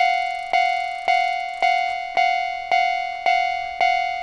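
Japanese railroad crossing warning bell ringing kan-kan, about two strikes a second, each tone ringing on into the next. The crossing is active, with its barriers coming down.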